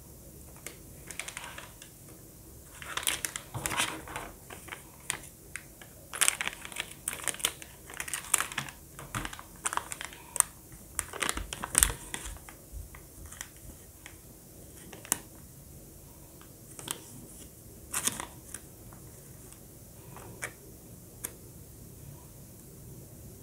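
Foil-lined plastic candy pouches crinkling as they are handled, with irregular sharp crackles, dense for the first half and sparser afterwards.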